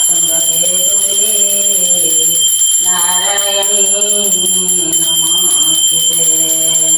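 A voice singing or chanting a devotional prayer in long, drawn-out phrases, three in a row, over a steady high-pitched ringing tone.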